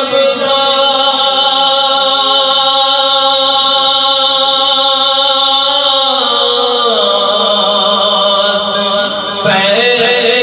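A man singing a naat into a microphone, drawing out long held notes that shift in pitch about six seconds in and again near the end.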